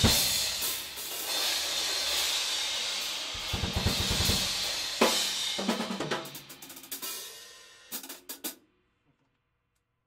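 Drum kit played with Saluda Earthworks series cymbals: cymbals crashing over drum hits, the wash dying away after a strong hit about five seconds in. A few quick strokes follow, then the sound cuts off to silence.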